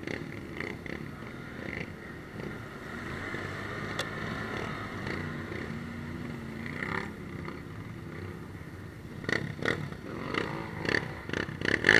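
ATV engine running at low speed as the quad wades through a muddy water hole, with water splashing around it. A run of short, sharp sounds comes near the end.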